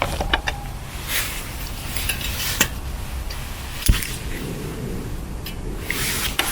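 Camping cook kit being handled: metal pots and utensils clinking, amid rustling, with a sharp knock about four seconds in.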